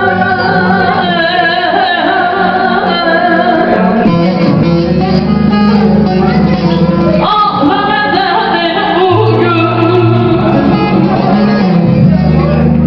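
A woman singing a folk song live, holding long wavering notes, over a plucked string instrument accompaniment.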